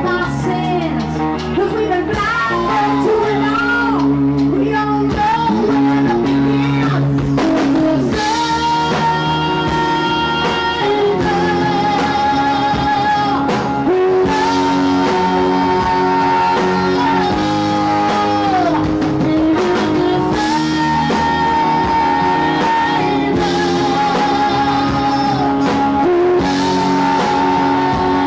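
Live rock band playing electric guitar, bass and drums, with singing. Long held, wavering notes come in about a third of the way through.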